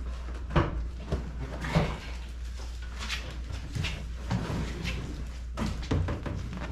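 Knocks, bumps and rustling as a pickup truck's bench seat is lifted and worked out of the cab, with sharp knocks about half a second in, near two seconds and near the end, over a steady low hum.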